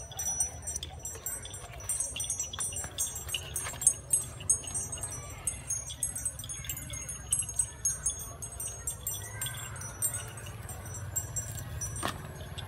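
Small metal bells on grazing cattle jingling irregularly as the animals move, many short high ringing notes.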